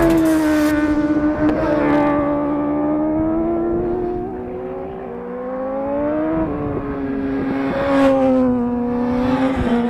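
Sport motorcycle engine held at high revs, its pitch wavering up and down. It eases off briefly about five seconds in, then climbs again.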